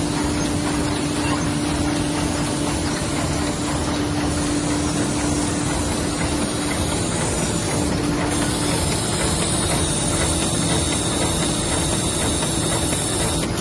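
Aster 180 book-sewing machine running: a steady mechanical din with hiss and a steady low hum.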